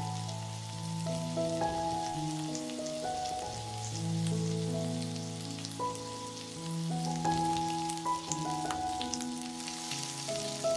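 Chicken seekh kebabs sizzling and crackling on a hot ridged grill pan. Soft background music of held notes, changing every second or so, is the loudest sound.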